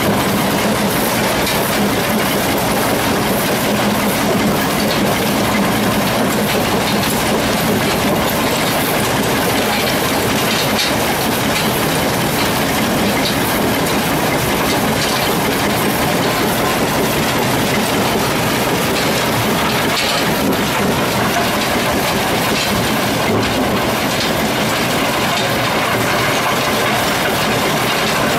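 Ore processing plant machinery running: crusher, belt conveyors and screens make a dense, steady mechanical clatter and rattle with no letup.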